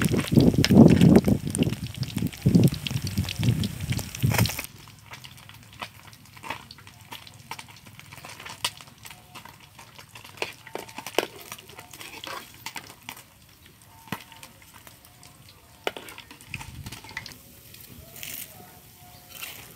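Fish frying in hot oil in a wok, a loud dense sizzle, for the first four or five seconds. Then it drops off suddenly to a quieter stretch of scattered light scrapes and clicks from a metal ladle and spatula working the fish.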